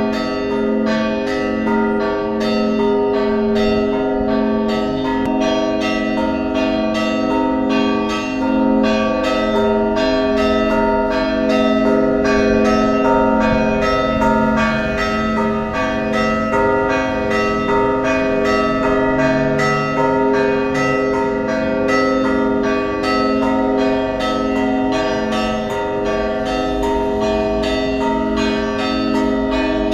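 Orthodox church bells ringing in a fast, continuous peal: small bells struck rapidly, about three strokes a second, over the steady ringing of larger bells.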